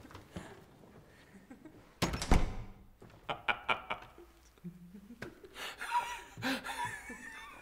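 A door shuts with a heavy thud about two seconds in, then a man laughs out loud.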